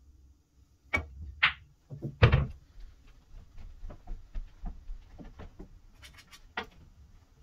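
A 9-ball break: a sharp crack as the cue ball smashes into the rack about a second in, then balls clacking against each other and the cushions. The loudest knock comes about a second later, followed by a run of fainter clicks that thins out over several seconds. A few short, high scraping sounds come near the end.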